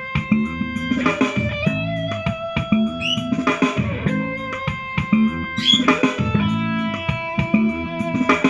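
Guitar-led music with a steady beat, played through a portable Bluetooth speaker and picked up by a microphone.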